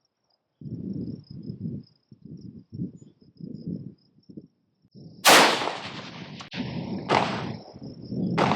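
Wind buffeting the microphone in choppy gusts, with a faint steady insect chirring behind it. About five seconds in, a single loud rifle shot, followed by more gusty noise and two fainter sharp bursts.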